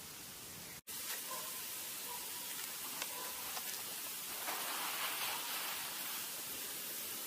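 Steady hiss of noise, broken by a brief dropout about a second in, with a few faint ticks.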